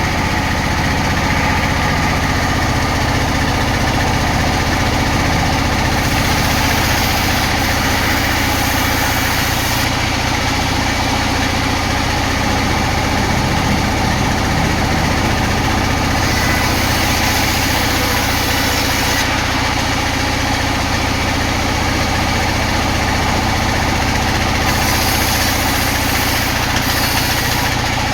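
Sawmill machinery running steadily with a loud, even drone. Three spells of higher hiss, a few seconds each, come in about six seconds in, about sixteen seconds in and near the end.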